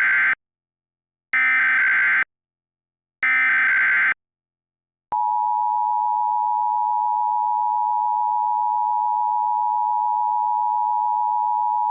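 Emergency Alert System encoder sending its SAME header: the end of one data burst, then two more full bursts of about a second each, harsh electronic data tones with short gaps between them. These open an EAS alert, here a required monthly test. About five seconds in, the steady two-tone EAS attention signal (853 and 960 Hz) starts and holds.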